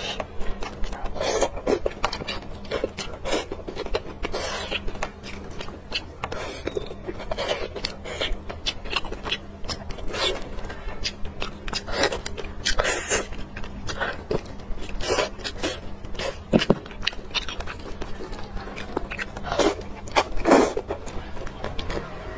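Close-miked eating: glass noodles slurped and braised pork bitten and chewed, with frequent wet smacking and clicking mouth sounds.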